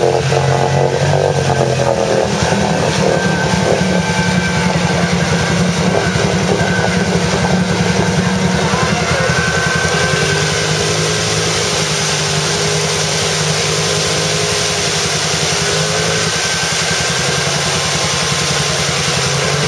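ATV engine running under heavy load while the quad is bogged nearly to the seat in a deep mud hole, its revs rising and falling as it is worked through the mud.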